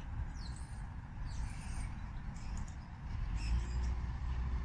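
Small bird calling in short high chirps, about four of them roughly a second apart, over a steady low rumble.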